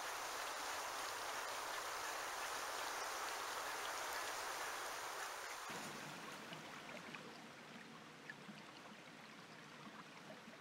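A steady rushing noise that changes abruptly about six seconds in to a quieter trickle of shallow stream water running over stones, with faint scattered ticks.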